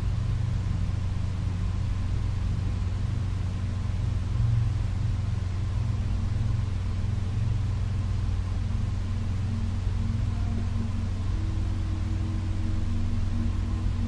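Dark ambient background music: a steady low rumbling drone, with a few sustained higher tones coming in near the end.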